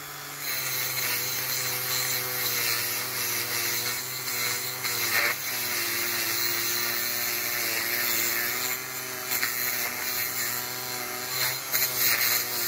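Black & Decker Wizard rotary tool running steadily with a small wire wheel, scrubbing stripped paint residue off the diecast metal base of a toy car. The motor whine wavers slightly in pitch as the wheel is pressed to the metal, over a continuous scratchy hiss, with a few brief louder scrapes.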